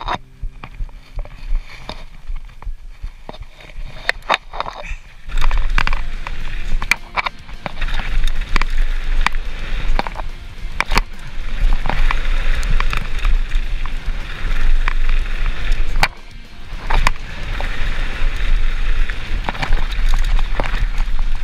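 Mountain bike riding a rough trail: tyres rolling over dirt and stones with the bike rattling over bumps, and wind buffeting an action camera's microphone. Quieter for the first few seconds, much louder from about five seconds in, with a brief lull near sixteen seconds.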